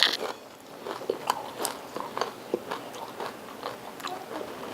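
A person chewing a mouthful of taco: a steady run of small, irregular crunches and mouth clicks, the loudest right at the start.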